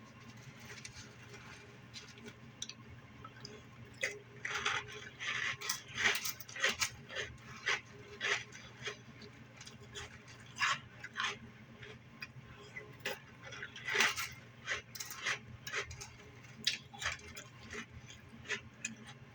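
A spoon in a bowl of crunchy cereal: irregular light clinks and crunches, over a steady low hum.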